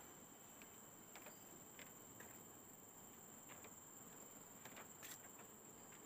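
Near silence: a faint, steady, high-pitched drone of forest insects, with a few scattered faint ticks.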